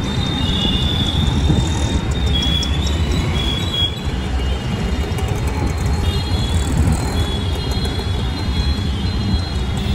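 City street traffic: a steady low rumble of auto-rickshaws and motorbikes passing close by, with thin high-pitched tones coming and going over it.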